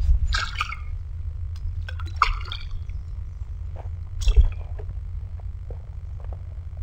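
A small hooked pike splashing at the water's surface as it is drawn in on the lure, in three short splashes about two seconds apart, over a steady low rumble on the microphone.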